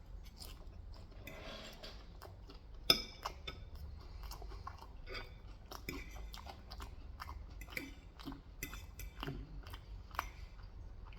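Close-up chewing and biting of crispy Korean fried chicken: irregular crunches and wet mouth smacks, with one sharp click about three seconds in.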